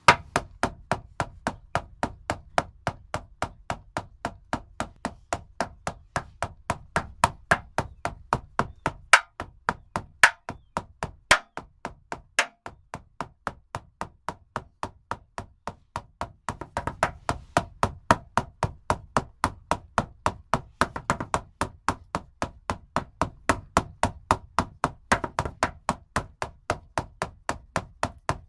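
Shaman frame drum beaten in a steady, fast, even beat, with a few strokes struck harder than the rest.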